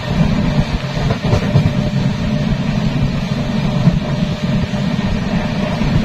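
Steady low rumble of a Janshatabdi Express passenger train running at speed, its wheels on the rails heard from an open coach door.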